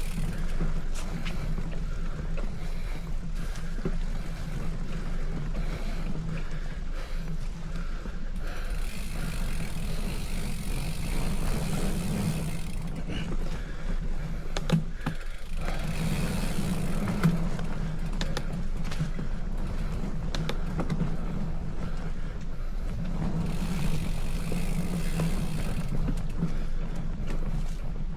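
Steady rumble of a bicycle ride: wind on the microphone and the tyres rolling on the road, with a few faint clicks.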